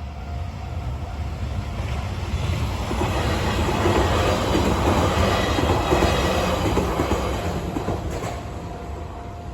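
A train passing over a level crossing, growing louder to a peak in the middle and fading again near the end. A steady warning tone from the crossing signal runs underneath.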